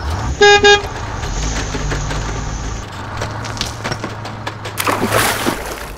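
A short electronic beep, then a low truck-engine rumble that shifts in pitch and stops about five and a half seconds in, as a toy garbage truck moves over gravel. Small stones tick and crunch under its wheels, with a short scatter of gravel near the end.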